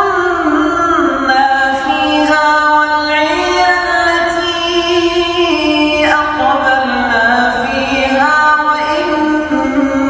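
A single high male voice reciting the Quran in melodic chanted tajweed style. It draws out long held notes that step and glide between pitches, with no breaks like ordinary speech.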